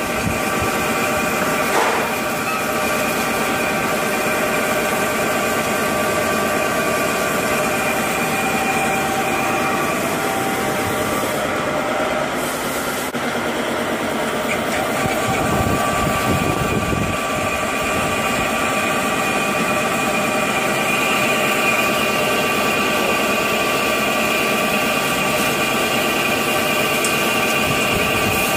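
CNC lathe turning a metal part: the spindle runs and the cutting tool shears off curled chips, a steady machine sound with several steady tones over a noisy bed.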